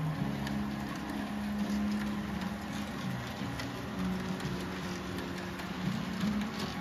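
H0-scale model Santa Fe EMD diesel locomotives running, with a low engine-like drone that shifts in pitch now and then and light clicking of wheels over the track.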